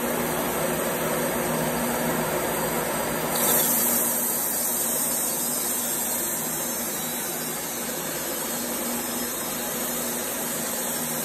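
Wood-Mizer LT15 Wide Electric bandsaw mill running its band blade into an ash log, a steady electric-motor and blade noise. About three seconds in, a brighter hiss joins as the blade starts cutting into the wood.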